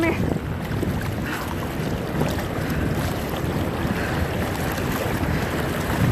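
Floodwater sloshing and splashing as someone wades through it, with wind rumbling on the phone's microphone.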